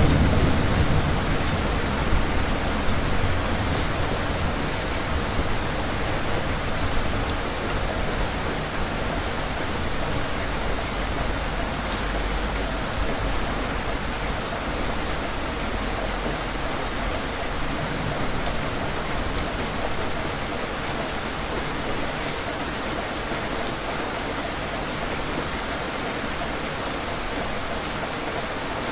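Heavy rain falling steadily in a storm, a dense even hiss of rain on hard surfaces. The low rumble of thunder dies away over the first few seconds.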